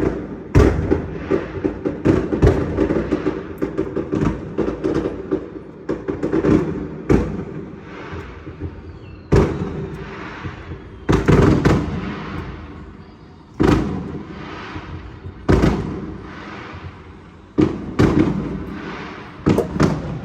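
Fireworks going off: a fast run of crackling bangs for the first few seconds, then single louder booms every second or two, each with a fading rumble.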